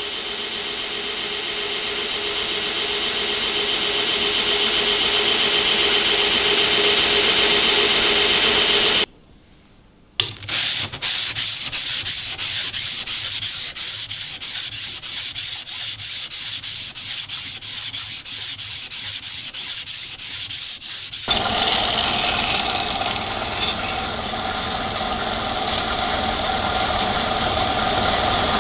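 Belt grinder running with a steel blade held against the belt, a steady grinding hiss. After a brief break, quick even sanding strokes, about three or four a second, then steady grinding again.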